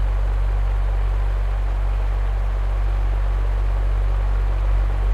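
Electric fan running steadily: a low hum under an even rush of air, swelling slightly near the end.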